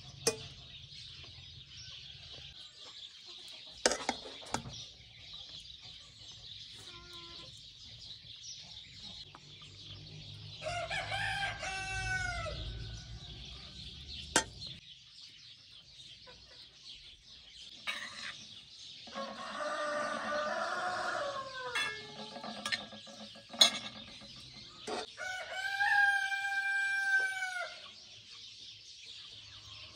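A rooster crowing, about three times, each crow lasting two to three seconds. Between them come a few sharp clinks of a metal spoon against a steel pot.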